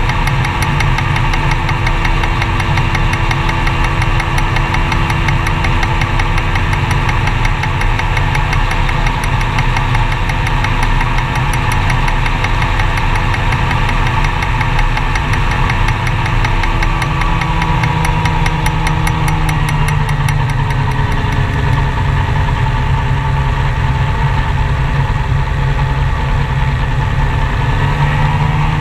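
Gyroplane engine and propeller running steadily, heard loud and close. The engine note drops about twenty seconds in and climbs back up near the end.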